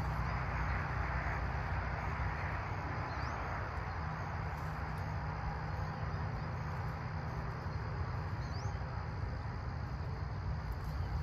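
Steady outdoor background at a pond: an even hiss over a low rumble, with two short rising chirps, about three seconds in and again about eight and a half seconds in.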